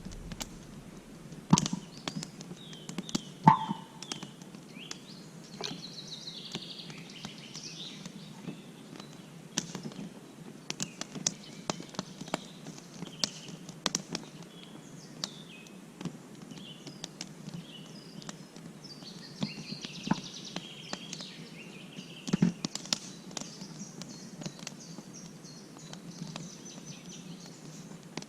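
Small birds chirping in short, repeated calls, with scattered sharp clicks and snaps throughout and a single louder knock about three and a half seconds in.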